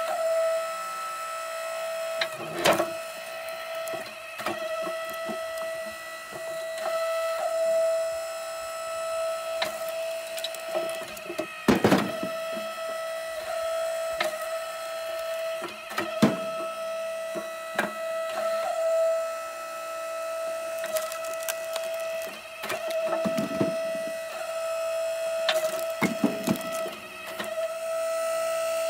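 Split Fire 1165 electric log splitter running with a steady motor hum while short hickory chunks are split, with sharp cracks of the wood splitting and knocks of split pieces dropping onto the tray every few seconds.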